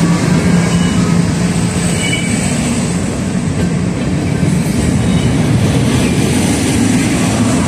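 Train passing close by: a loud, steady rumble of the train running over the track.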